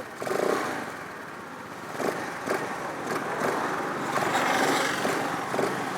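Honda Activa scooter, modified to sound like a KTM motorcycle, running with its engine note swelling about two seconds in and again later, with a few short sharp pops.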